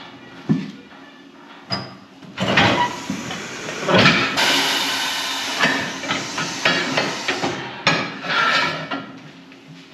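Metal clanks and knocks as a tire is worked with a steel bar on a Coats 40-40SA center-post tire changer. A steady hiss runs for about three seconds in the middle.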